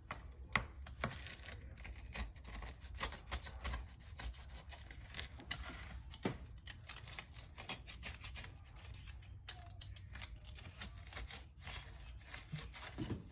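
Pizza cutter wheel rolling through the flaky, baked lattice crust of an apple pie, the crust crackling and crunching in many small, irregular crackles.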